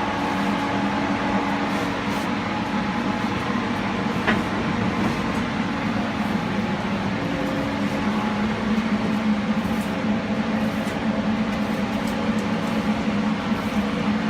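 UBS 2200 drilling rig's machinery running steadily, a continuous mechanical drone with a constant low hum.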